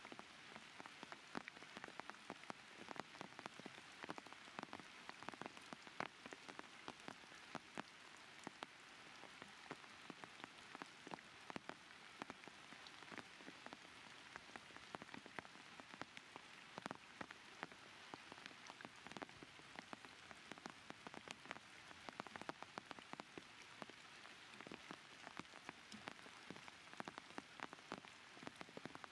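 Faint patter of raindrops on surfaces: many small irregular ticks over a soft hiss.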